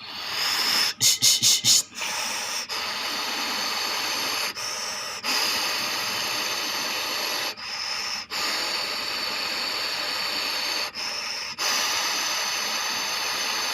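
Panasonic air conditioner fan blowing, a steady rushing hiss of air, broken by several short gaps and a few quick pulses about a second in.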